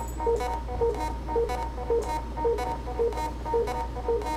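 Korg littleBits Synth Kit, built out with extra oscillator and sequencer modules, playing a looping sequenced pattern: short electronic bleeps about twice a second, each paired with a sharp noisy click, over a steady low hum.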